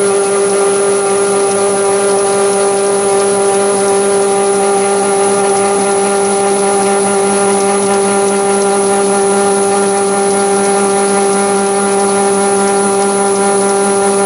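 Chinese mini lathe running steadily with its chuck turning at about 300 rpm: an even motor and gear whine, with a thin high whine above it and no change.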